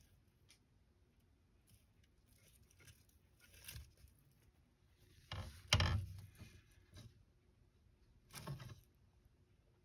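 A savanna monitor lunging at and tugging on a hornworm held in plastic feeding tongs. It makes a few short scuffling, scraping sounds of claws, body and jaws against the bark substrate and the tongs, the loudest about halfway through and another near the end.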